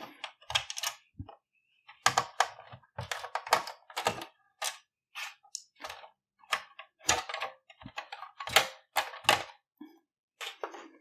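Irregular clicks and taps of a screwdriver and hands working T8 screws out of a PlayStation 4's plastic cover and handling the plastic parts.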